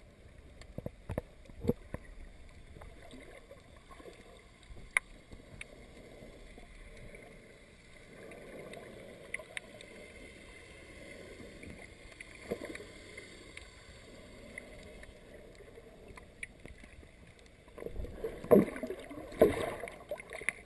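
Underwater ambience picked up with the microphone below the surface: a low, muffled wash of water with scattered sharp clicks and knocks, and louder rushing water noise near the end.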